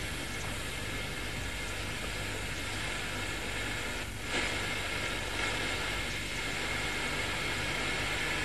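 Steady hiss of electronic white noise with a low mains hum, from an instrumental transcommunication (ITC) noise-generator setup, the noise in which spirit voices are listened for. About four seconds in it dips briefly and comes back a little louder.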